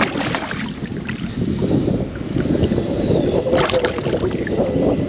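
Wind buffeting the microphone and water moving around a fishing kayak, a steady rumbling noise with a few brief splashes or knocks.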